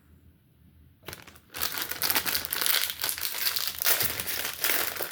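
Plastic wrapper of a Welch's fruit snacks bag crinkling as it is handled and opened, starting about a second in and going on busily.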